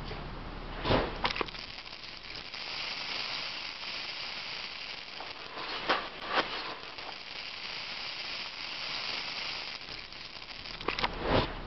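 Hunter PGJ pop-up rotor sprinkler coming on about a second in and spraying a single water stream with a steady hiss. Pairs of sharp pops come about a second in, around six seconds and near the end.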